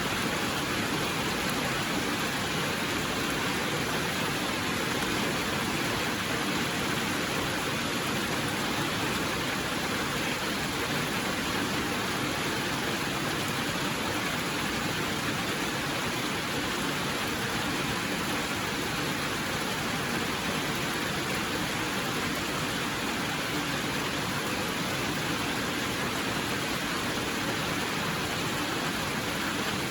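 Steady rainfall: an even, unbroken hiss of rain with no thunder or separate drops standing out.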